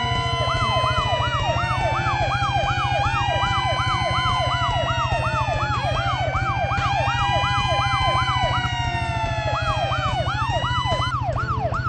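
Several cartoon fire-truck sirens sound at once: a fast, repeating up-and-down yelp and slower wails that fall and rise, over a steady low rumble. The slow wails drop out near the end, leaving the yelp.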